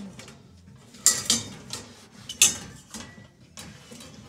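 Stainless steel colanders and pots clinking against each other as they are handled on a shelf: several sharp metallic clinks, the loudest about a second in and near the middle.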